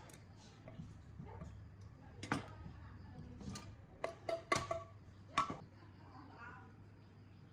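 Scattered sharp clicks and light metallic clinks from tools and small parts being handled, several with a brief ringing tone. They bunch together about four to five and a half seconds in, over a steady low hum.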